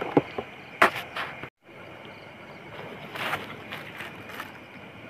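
A plate being rinsed in a water tank: short splashes of water and light clinks, over a steady high drone of insects. The sound cuts out completely for a moment about a second and a half in.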